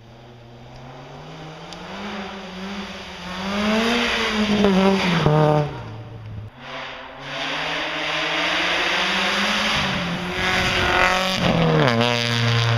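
Rally car engines at full throttle going past, pitch climbing through the revs to a loud peak about five seconds in, then dropping sharply as the car goes by; a second pass builds and drops the same way near the end.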